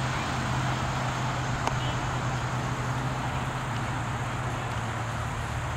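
Steady outdoor background noise: an even hiss with a low hum under it that fades after about two seconds, and one faint click near the two-second mark.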